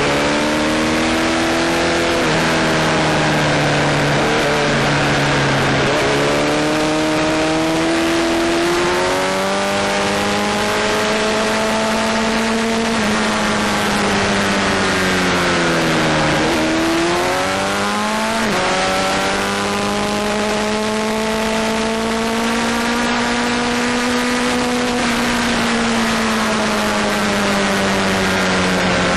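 Sport motorcycle engine heard on board at track speed, its pitch climbing through the revs and dropping at each gear change. It falls steeply about two-thirds through, as when braking and downshifting for a corner, then climbs again, all over steady wind rush.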